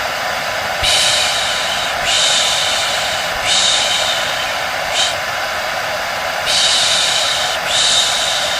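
Hair dryer blowing steadily with a faint whine, overlaid with a person's rhythmic 'shh' shushing, each long hiss about a second long, repeated over and over to soothe a baby to sleep.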